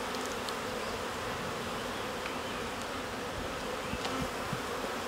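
A colony of honey bees in an opened wooden bee box buzzing with a steady hum.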